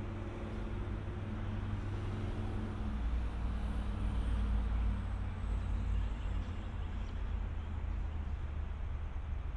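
Diesel locomotive engine running, a steady low rumble that grows louder about three seconds in and eases again around six seconds.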